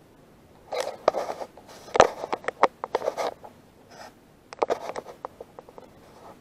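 Handling noise from a spinning rod and reel in a jon boat: two bursts of rattling clicks and scraping, the first from about a second in, the second in the second half, with one sharp knock between them.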